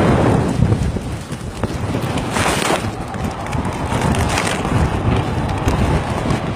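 Strong sea wind buffeting the microphone over rough open water, with waves washing. Two short, louder rushes come about two and a half and four and a half seconds in.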